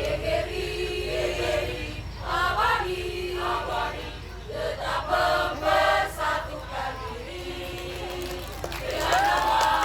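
Mixed choir singing unaccompanied, many voices holding sung notes in short phrases. Near the end, high calls that slide up and down in pitch join in.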